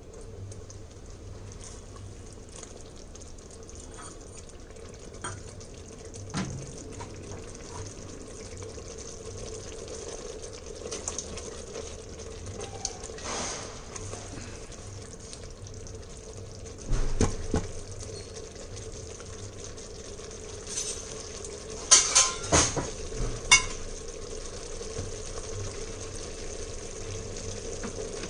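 A spoon stirring thick gravy in the metal inner pot of an electric pressure cooker, with scraping and a few sharp knocks against the pot, loudest about 17 seconds in and in a cluster around 22 to 23 seconds. A steady hum runs underneath.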